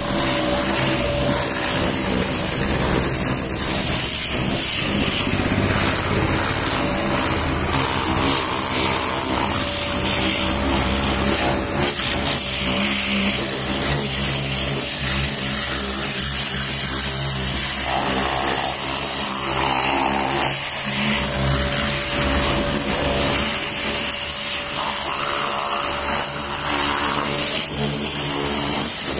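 Pressure washer running without a break: its pump motor hums steadily under the hiss of the high-pressure water jet spraying against a car's rear bodywork and chrome bumper.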